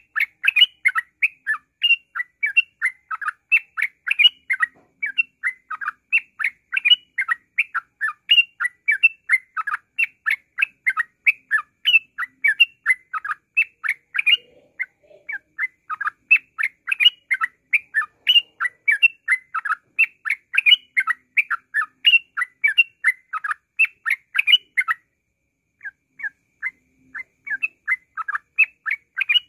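Yellow-vented bulbul (trucukan) singing its rapid 'ngropel' song: an unbroken stream of short chirping notes, about three a second, with a brief break about 25 seconds in before it starts again.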